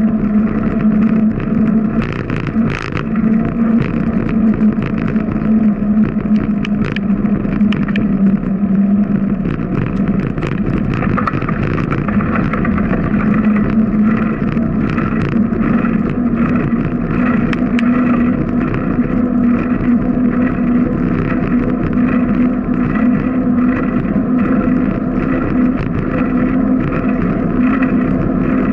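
Bicycle rolling along a concrete street at cruising speed: a steady tyre hum over road noise that rises a little in pitch in the second half as the bike speeds up, with frequent small clicks and rattles, most noticeable around two to three seconds in.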